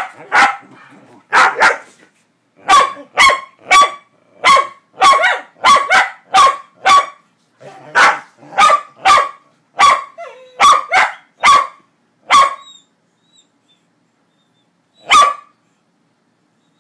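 A dog barking in play, a quick run of barks about two a second that breaks off about twelve seconds in, followed a few seconds later by one more single bark.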